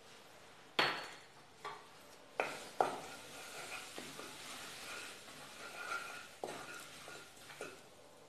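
Spices frying in hot oil in an aluminium kadhai, sizzling steadily, while a wooden spatula stirs and taps against the pan. A sharp knock comes about a second in, with a few more knocks and taps after it.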